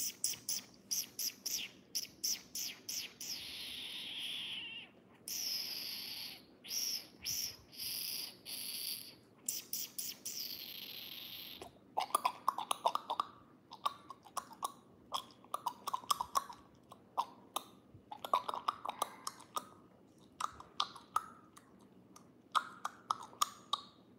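A person calling a cat with mouth noises: repeated hissing "psst" sounds through the first half, then quick clusters of squeaky kissing sounds.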